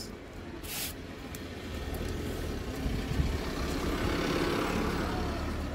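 A road vehicle's engine passing by, a low rumble and hiss that swells to its loudest about four seconds in, then eases off.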